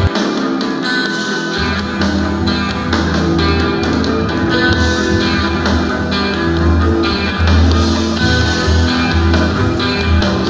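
Background music with guitar and a steady beat; the bass drops out for about the first second and a half, then comes back in.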